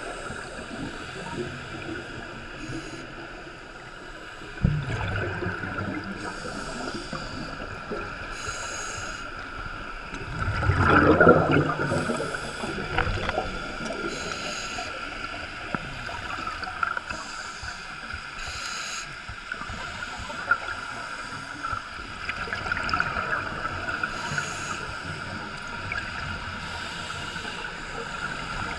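Underwater scuba diving sound, muffled through the camera's waterproof housing: divers' regulator breathing and exhaled bubbles, with short hisses every few seconds. There is a sharp knock about five seconds in and a loud rush of bubbling about eleven seconds in.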